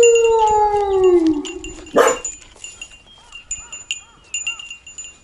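Young Shikoku dog whining on the leash: one long, drawn-out whine that holds its pitch, then falls and fades out about a second and a half in. A single sharp knock follows about two seconds in, with faint bell-like tinkling throughout.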